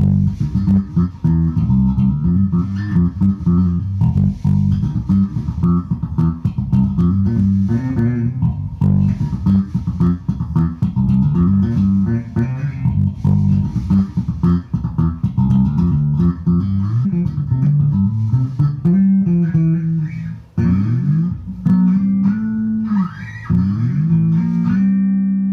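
Harley Benton MM 85-A SB Deluxe five-string electric bass playing a busy line of low notes on its third pickup-switch setting, which the player believes puts the first coils of each pickup in parallel and the two pickups in series. Near the end a few notes slide in pitch, and it finishes on one held, ringing note.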